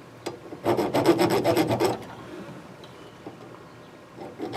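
Thread file rasping back and forth over damaged bolt threads in rapid strokes, to clean up and restore the threads. A burst of about a second, a quieter pause, then the strokes start again near the end.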